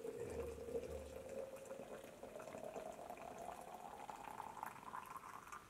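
Hot water poured from a metal kettle into a red plastic flask, its tone rising steadily in pitch as the flask fills.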